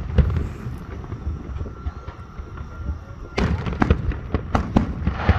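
Aerial fireworks going off over a low rumble, with a sharp bang just after the start. From about three and a half seconds in comes a quick run of sharp cracks and bangs.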